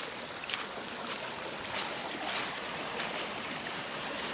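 A small creek running and splashing over rocks, with several crunching footsteps in dry leaf litter.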